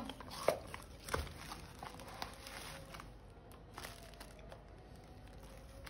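A large mrigal carp being cut on a boti blade: scattered crunches, cracks and knocks as the blade goes through flesh and bone and the fish is shifted on the sack beneath it, the loudest knock just past a second in.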